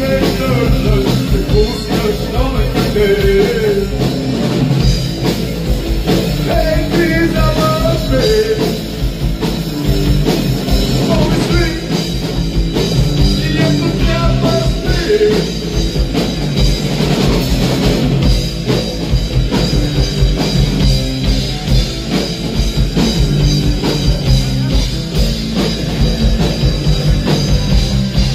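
Live rock band playing through a club PA: electric guitars and a drum kit, with a singer's vocal over them.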